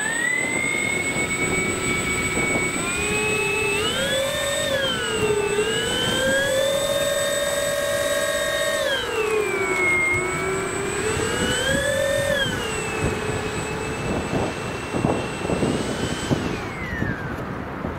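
Twin electric motors and propellers of a radio-controlled F7F-3 Tigercat model plane running up on the ground: a steady whine whose pitch rises and falls several times as the throttle is opened and eased, then winds down and stops near the end.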